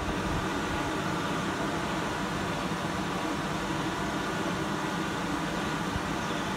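A steady mechanical hum under an even hiss, with no change in level.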